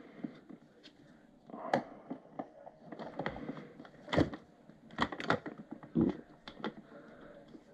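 Scattered clicks and knocks of an airsoft rifle's buttstock being handled and pushed back onto the rear of the gun, with the loudest knocks about 4 and 5 seconds in.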